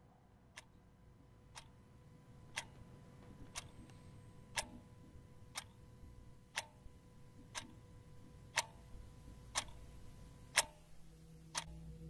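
Analogue alarm clock ticking once a second, the ticks growing steadily louder over a faint steady hum. A low droning tone comes in near the end.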